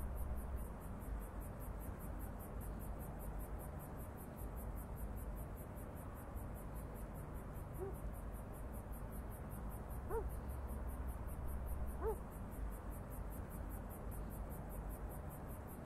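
Night ambience of insects chirping in a steady high pulse, about four beats a second, over a low steady rumble. Three short calls, each rising and falling, come about eight, ten and twelve seconds in.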